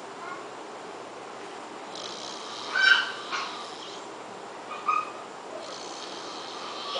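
Sleeping man snoring: two hissing breaths, with short high squeaks through the nose, the loudest about three seconds in and another about five seconds in.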